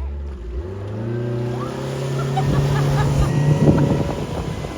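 Dinghy outboard motor opened up hard for a fast getaway, its pitch climbing steadily for about four seconds before blurring into a rush of engine and water noise.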